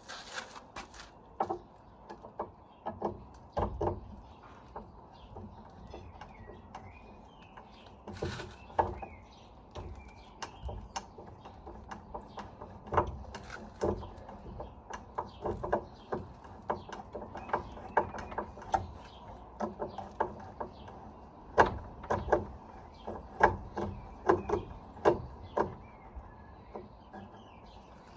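Clicks and light knocks of hand tools working on a gate-mounted door closer's metal fittings as it is worked loose. They come scattered, then in two quicker runs of about two clicks a second later on.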